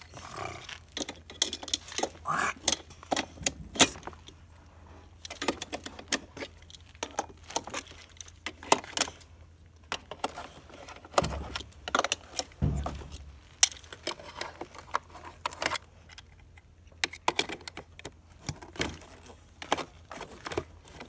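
Plastic toy wrench clicking, tapping and rattling against the plastic parts of a child's ride-on toy four-wheeler, in irregular knocks, with a couple of duller thumps a little past halfway.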